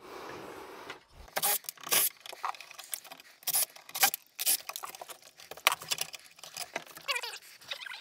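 Irregular clicks, taps and scraping of a metal electrical box being worked loose from a wooden stud with a cordless drill, with a few short squeaks near the end.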